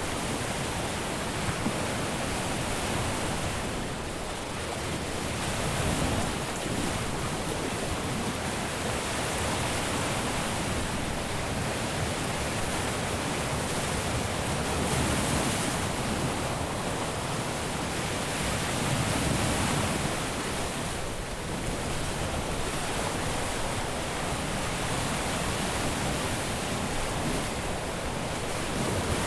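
Caribbean surf breaking steadily on a beach: a continuous wash of waves with slow swells in loudness every few seconds, strongest around six, fifteen and nineteen seconds in.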